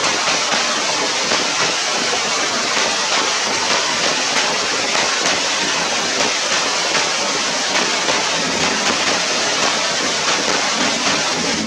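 Rain falling steadily: an even hiss with a fine patter of drops.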